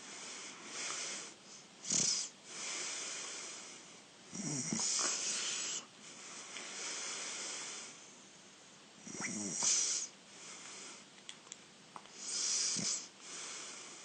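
A sleeping man snoring: rasping snores with a low fluttering buzz come about every three to four seconds, with softer breathy sounds in between.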